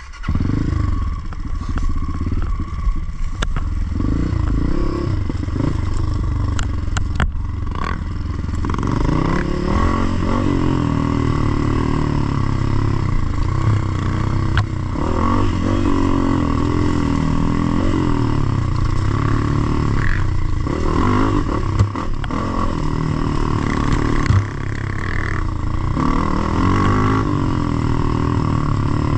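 Dirt bike engine running under way, its revs rising and falling again and again with throttle and gear changes.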